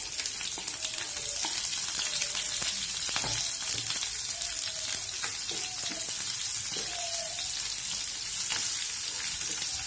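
Sliced red chilies, garlic and shallots sizzling in hot oil in a non-stick frying pan: a steady frying hiss that began when the chilies went in. A wooden spatula stirs them, with faint scraping taps against the pan.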